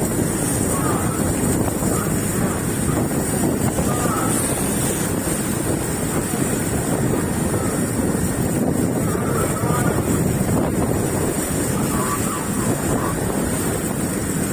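Fishing boat's engine running steadily under way, with wind buffeting the microphone and water rushing past.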